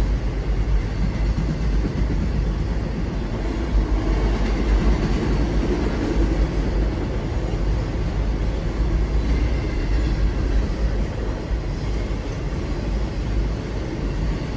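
Freight train of enclosed autorack cars rolling past at steady speed: a continuous deep rumble of steel wheels on the rails.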